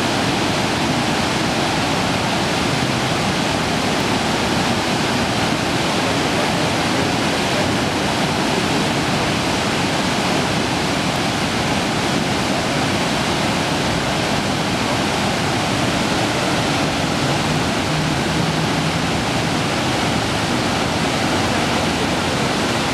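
Iguazu Falls: a steady, loud rush of water from the cascades, an even unbroken noise.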